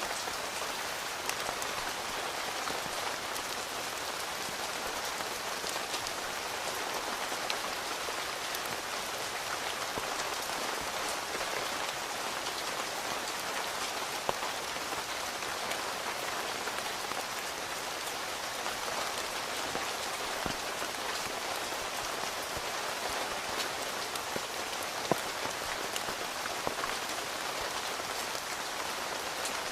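Steady rain falling on a tent, with scattered louder single drops striking, two of them standing out about halfway through and near the end.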